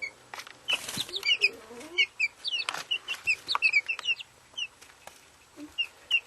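Three-week-old chicks peeping in many short, high chirps, with scattered sharp clicks among them.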